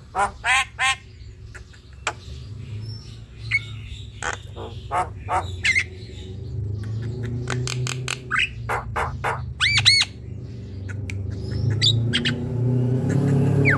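Javan myna chattering: a run of short, harsh squawks and calls with a few whistled notes in between, including a quick double whistle about ten seconds in. A low steady hum grows louder underneath during the second half.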